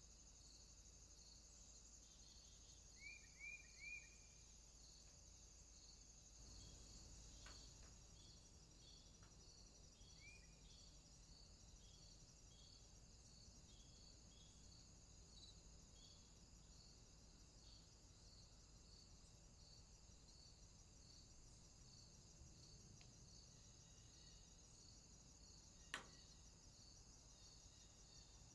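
Faint, steady chirping of crickets or other insects in an evenly repeating pulse, with a few short bird chirps early on and once more a little later. A single sharp click near the end is the loudest moment.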